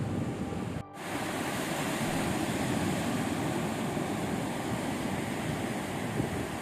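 Ocean surf washing onto a beach, a steady rush with wind on the microphone. The sound cuts out for an instant about a second in.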